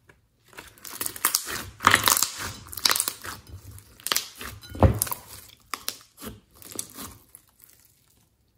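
Hands squeezing and stretching glossy slime, giving an irregular run of sticky crackles and wet pops, the loudest pop about five seconds in.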